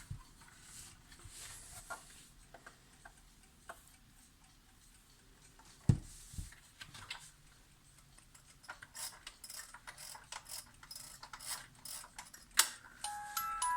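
Vintage Toyo Clox 7070 alarm clock mechanism: scattered small clicks and a louder knock about six seconds in, then a quick run of clicks, a sharp click near the end, and the alarm's chiming tones starting to play.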